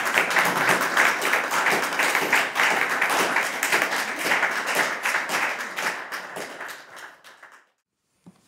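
Audience applauding, dying down over the last few seconds and ending abruptly about a second before the end.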